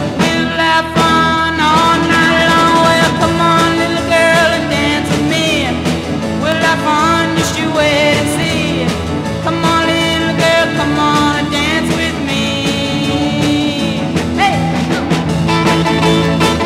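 Background music: a song with singing and guitar.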